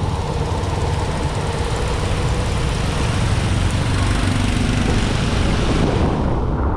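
Motor vehicle driving, with a steady low engine rumble and a rushing noise over it that fades away about six seconds in.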